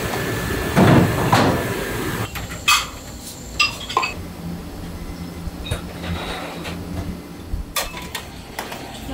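Dishes being handled in a restaurant kitchen: ceramic bowls and trays clinking and knocking as set meals are laid out, a few separate clinks over a steady low hum.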